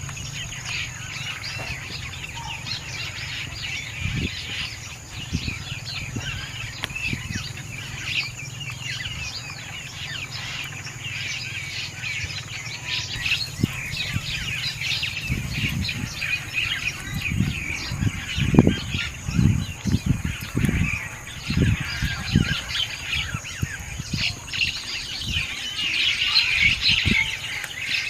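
Many small birds chirping busily and continuously over a steady high whine. About halfway through, a series of low thuds and bumps begins, loudest about two-thirds of the way in.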